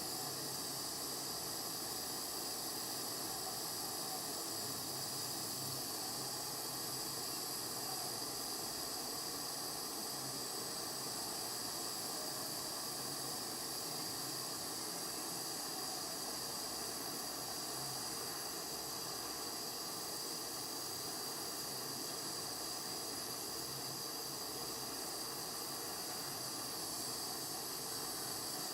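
Gas soldering torch flame hissing steadily as it heats a silver ring for the solder to flow.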